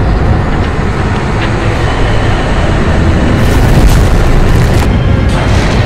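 Loud cinematic destruction sound effects: a heavy, continuous low rumble with booms and crashing, changing abruptly about halfway through and again near the end.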